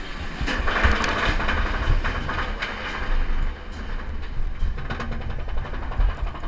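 Inverted roller coaster train being hauled up its chain lift hill: a steady mechanical clatter of rapid, irregular clicks and clanks over a low rumble.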